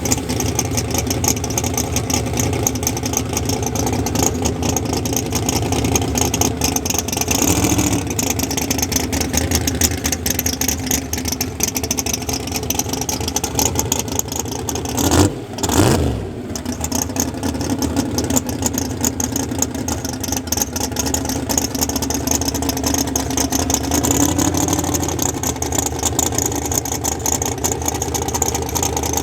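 Morgan & Sons big-block Chevrolet V8 race engine running steadily. About halfway through its pitch dips briefly and comes back.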